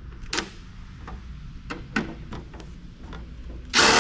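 Handling of a microfiche reader's housing during disassembly: scattered sharp clicks and knocks, then a louder rough noise lasting about half a second near the end.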